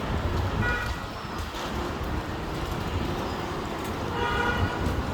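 Steady low rumble of road traffic with two short vehicle horn toots, one near the start and one about four seconds in.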